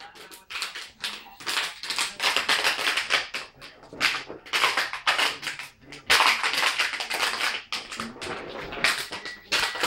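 Plastic water bottle crinkling and crackling in irregular bursts as a dog bites and paws at it.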